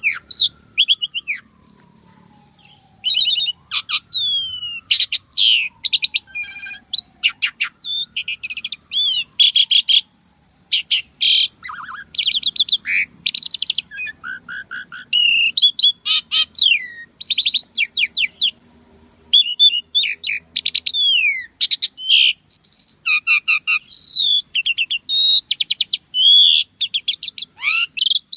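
Asian pied starling (jalak suren) singing continuously: a rapid, varied string of whistles, chattering trills, buzzy notes and rising and falling glides, with hardly a pause. A fainter, slowly falling whistle repeats three times in the first several seconds.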